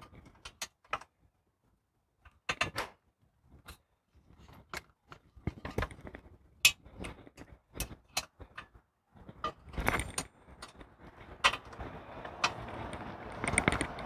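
Scattered small metallic clicks and knocks of a hex key working the bolts on an e-bike's mechanical disc brake caliper and of the loosened parts being handled. Denser rustling handling noise builds over the last few seconds.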